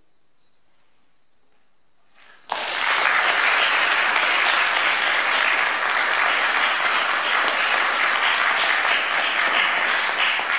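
Audience applauding after a brief hush; the clapping starts suddenly about two and a half seconds in and keeps up steadily.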